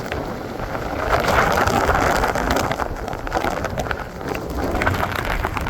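Hurricane wind buffeting the microphone and rain falling, with a gust or swell about a second in and scattered sharp drop ticks.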